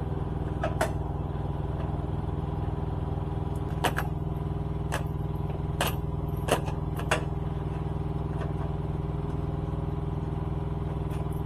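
Steady low mechanical hum, with about six sharp clicks and knocks scattered through the first seven seconds as motorcycle parts and clips are handled.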